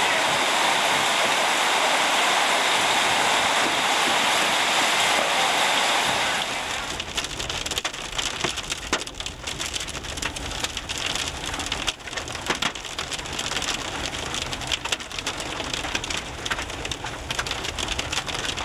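Steady hiss of heavy rain for about the first six seconds. Then, a little quieter, the rushing sound of a car driving on a flooded road in the rain, heard from inside: tyre spray, with scattered sharp taps against the windshield.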